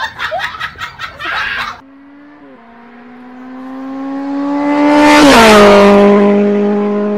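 Race-car engine sound effect: the engine grows louder and rises in pitch as it approaches, then drops sharply in pitch with a rushing whoosh as it passes, and runs on at a steady lower pitch before cutting off abruptly.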